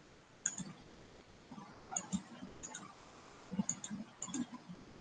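Computer mouse clicking a number of times, several clicks in quick pairs, as slides are moved through.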